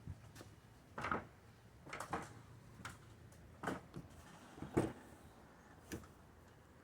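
A series of short, irregular knocks and clunks, about seven over several seconds: handling noise, with no engine running.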